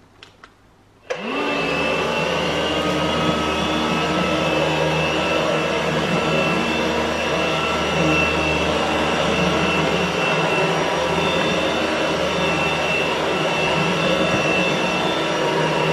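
Philips AquaTrio cordless wet-and-dry vacuum mop switching on about a second in with a short rising whine, then running steadily with a high whine while it vacuums and mops a hard floor.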